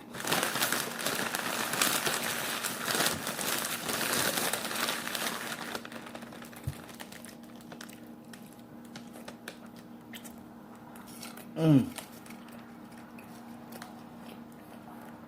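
Food packaging crinkling and rustling for about six seconds, then it stops. About twelve seconds in there is one short falling sound, the loudest moment.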